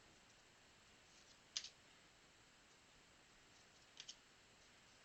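Near silence broken by a few faint clicks of trading cards being handled and flipped: one sharp click about a second and a half in and a quick double click near the end.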